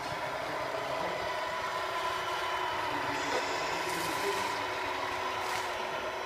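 Electronic sound unit of a radio-controlled Scania R470 model truck playing a steady truck-engine running sound, with a strong whine near 1 kHz. Two short hisses come about four and five and a half seconds in.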